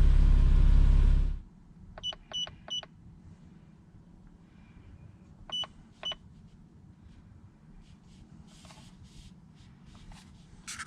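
A steady low rumble cuts off about a second and a half in. Then come short electronic beeps from a handheld scan tool as its screen is pressed: three quick beeps, and a few seconds later two more.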